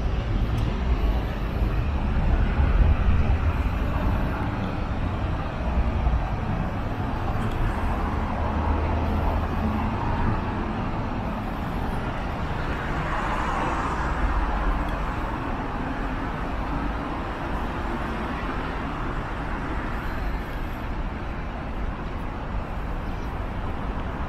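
Road traffic on a wide multi-lane city street: a steady rumble of cars and taxis driving past, swelling once about halfway through as a vehicle passes close by.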